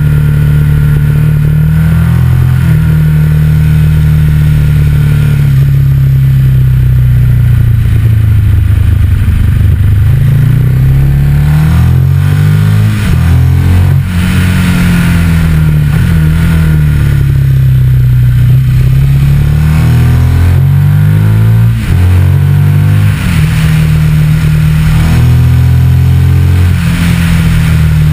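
Ducati Multistrada 1200's V-twin engine heard on board while riding through bends, its pitch rising under acceleration and falling when the throttle is rolled off, over a steady rush of wind. The level drops briefly a few times.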